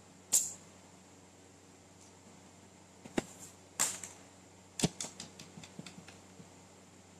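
Quiet room tone with a faint steady hum, broken by a few sharp clicks and short hissy rustles, then a quick run of fainter clicks about five seconds in.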